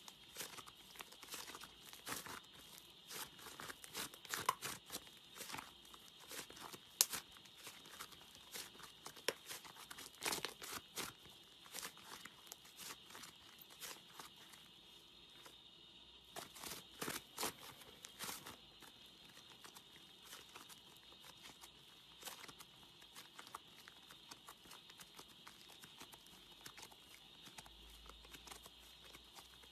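Thick beige slime being stretched, folded and pulled apart by hand, giving soft crackling and tearing sounds in quick irregular runs, over a faint steady hiss.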